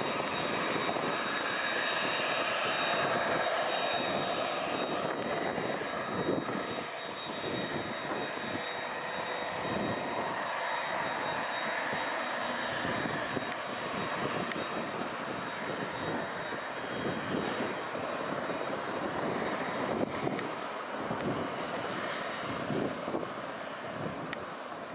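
Kawasaki C-2 transport aircraft's twin turbofan engines running as it taxis, a continuous jet roar with a steady high whine that fades after the first several seconds.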